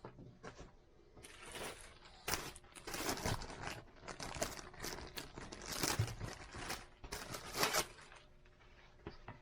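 Packaging crinkling and rustling in a series of irregular strokes while accessories are unwrapped and handled.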